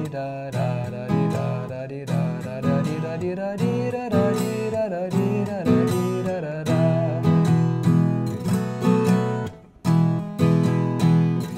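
Viola caipira in cebolão tuning plays a plucked solo melody with moving notes. After about seven seconds it switches to strummed chords in the cururu rhythm: down, up, down, with a muted 'matada' stroke. The playing breaks off briefly near the end, then the strumming resumes.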